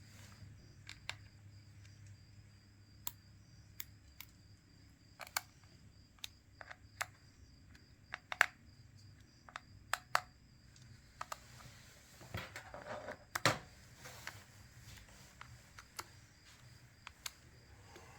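Scattered small clicks and taps of a precision screwdriver and tiny parts as a smartphone's screws are driven back in, with a short scraping rustle about twelve seconds in that ends in a sharper tap.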